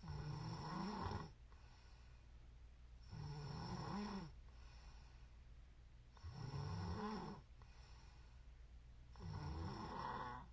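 A woman snoring in her sleep: four snores, evenly spaced about three seconds apart, each lasting about a second, over a faint steady low hum.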